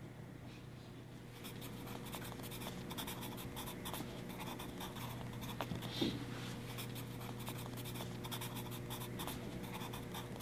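Faint, irregular scratching noises over a steady low hum, with one brief louder sound about six seconds in.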